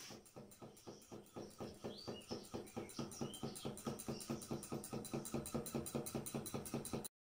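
Small brass model Recordon electromagnetic motor running on batteries: its electromagnet armature and contact breaker click in a fast, even beat as the flywheel turns, growing a little louder before stopping abruptly near the end.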